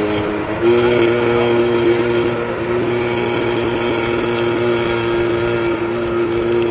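Jet ski (personal watercraft) engines running at a steady cruising speed across open water, giving a steady buzzing engine note. The note gets a little louder about half a second in, then holds at a constant pitch.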